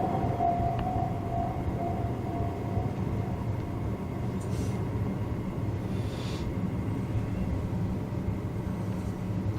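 Chichibu Railway electric train running along the line: a steady low rumble of wheels and running gear, with a thin steady whine that fades out about three seconds in.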